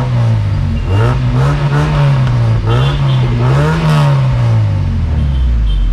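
Car engine revved three times in quick succession, its pitch rising and falling with each blip of the throttle, then dropping back toward idle near the end. The exhaust is loud and heard up close.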